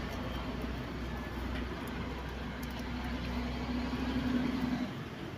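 A vehicle engine running steadily with a low hum, cutting off about five seconds in.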